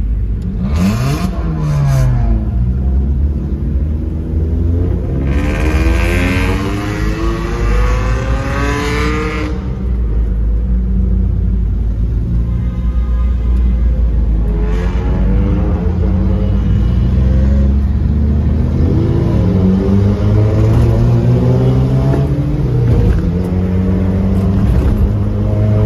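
Modified cars with loud aftermarket exhausts revving and accelerating hard one after another, heard from inside a following car. The engine pitch climbs and drops repeatedly, with two sharp cracks about one and two seconds in.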